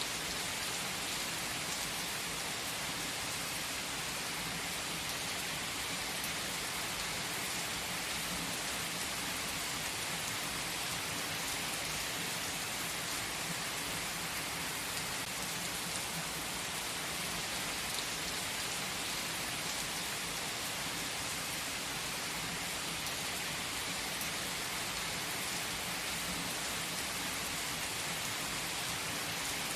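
Steady, even hiss like heavy rainfall, unchanging throughout, with no music or voice.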